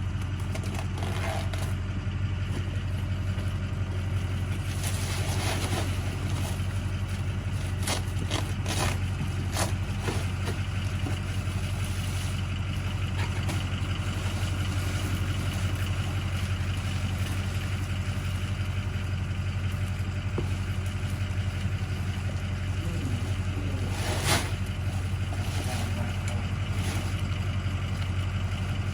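Engine of a farm vehicle running steadily with a low, even drone, with a few short knocks and rattles about 5, 9 and 24 seconds in.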